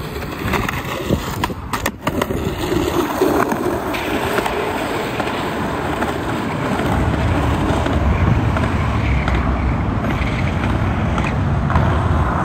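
Skateboard wheels rolling down a steep asphalt hill, a continuous rough rumble that grows louder and heavier about seven seconds in. A few sharp knocks near the start.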